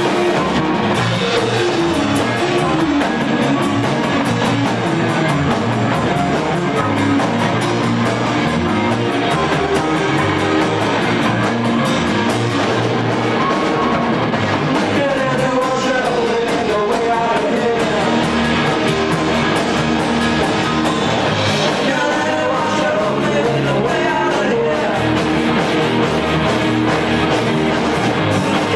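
A rock band playing live: electric guitar and drum kit, with a singer's voice over them in the second half.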